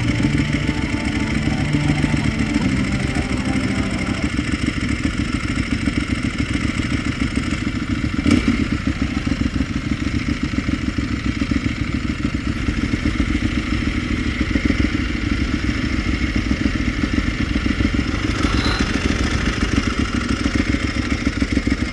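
Ducati 1198's L-twin engine, breathing through cored silencers, as the bike slows at low speed for the first few seconds and then ticks over with a steady pulsing beat. A single short click comes about eight seconds in.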